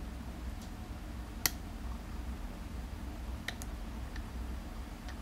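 Sharp, sparse clicks of lock-picking tools working the pins of a Teicocil cruciform lock: one louder click about a second and a half in, then a few fainter ones. A steady low hum runs underneath.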